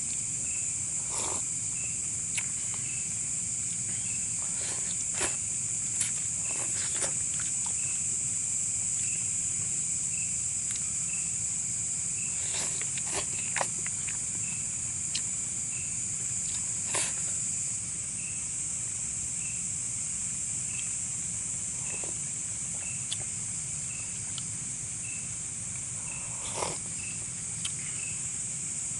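Night insect chorus: a steady high shrill drone with one short chirp repeating about once a second, over which come scattered, irregular clicks and taps.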